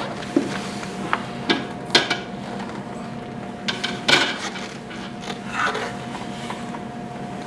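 Knocks and clatters as the round platform of a Biodex Balance System SD is lifted and tipped off its base: a few sharp knocks in the first two seconds and a louder cluster about four seconds in, over a steady background hum.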